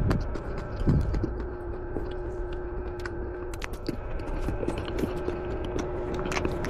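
Close-up chewing of alugbati (Malabar spinach) leaves: a run of small wet mouth clicks and crunches, with a faint steady hum underneath.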